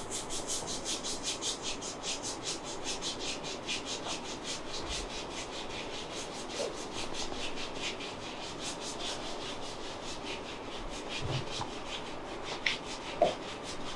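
A masseur's hands rubbing briskly back and forth in a quick, even rhythm of about five strokes a second.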